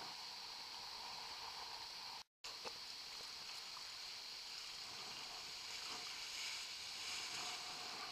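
Steady rush of wind and choppy water picked up by a camera riding close to the water surface. The sound cuts out completely for a moment about two seconds in, then the same rush resumes.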